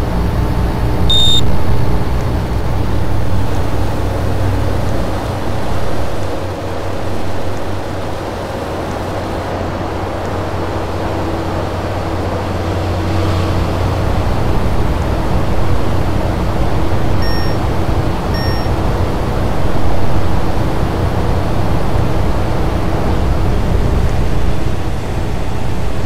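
Air conditioner running: a steady hum and rush of air with a rumble that swells and fades. A short electronic beep sounds about a second in, and two fainter beeps follow a little over a second apart near the two-thirds mark.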